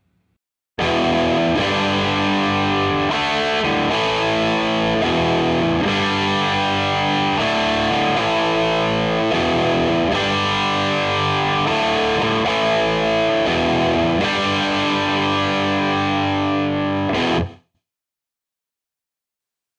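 Distorted electric guitar on its bridge humbucker, played through the Digitech RP360 XP's 800 JCM amp model, based on a 1983 Marshall JCM800. The playing starts about a second in and cuts off abruptly near the end.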